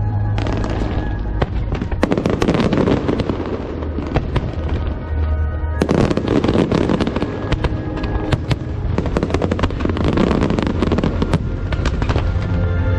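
Fireworks display: aerial shells bursting in rapid volleys of bangs and crackles, with dense crackling swells about two seconds in and again about six seconds in, over music.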